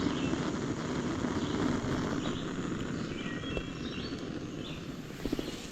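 Outdoor morning ambience: a steady low rumble with a few short, faint bird chirps over it, and a couple of light clicks near the end.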